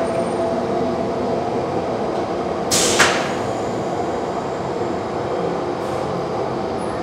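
Steady drone of running shop machinery with several steady tones, and a brief hiss lasting about half a second, about three seconds in.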